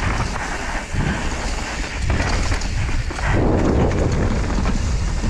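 Wind buffeting a helmet-mounted action camera's microphone over the rumble of a Pyga Hyrax enduro mountain bike's tyres rolling fast on a dirt trail. Short knocks and rattles come from the bike over bumps.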